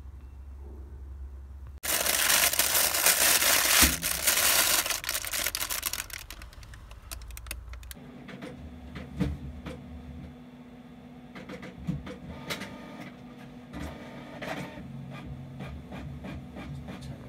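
Printer printing: about six seconds of loud mechanical noise, then a steady hum with scattered clicks.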